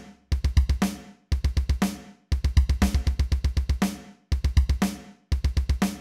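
Background music: a drum kit plays quick runs of kick, snare and cymbal hits in stop-start groups about once a second, with short silent gaps between them.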